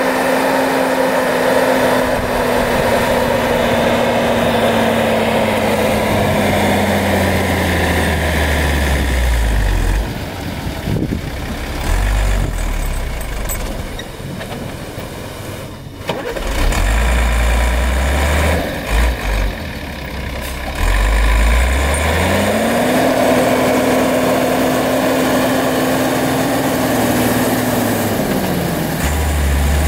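Mercedes-Benz Unimog's diesel engine working under load as the truck pushes through deep snow. The revs are held high, sag about a quarter of the way in, stay low and uneven through the middle, climb again about two-thirds of the way through, and dip once more near the end.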